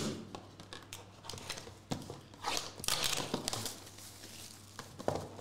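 Packaging of a sealed Topps Star Wars Signature Series trading card box being torn and crinkled open by hand, in irregular rustles and small clicks, loudest in the middle.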